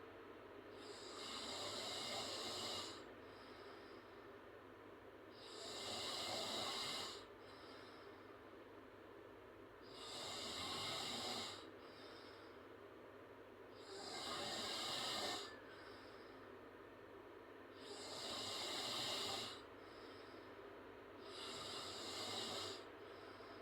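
A girl snoring through an open mouth: six breathy snores, one about every four seconds, each lasting a second or two.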